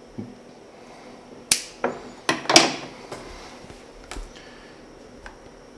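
Work on dosing-pump tubing at clear plastic dosing containers: scissors snipping the silicone tubing and a series of sharp clicks and plastic knocks, about eight in all, the loudest about two and a half seconds in.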